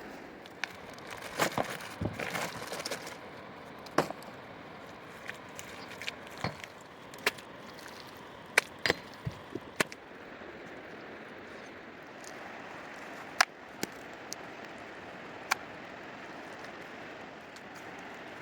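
Sharp knocks and cracks at irregular intervals, a short cluster early on and a run of them in the middle, over a steady even hiss.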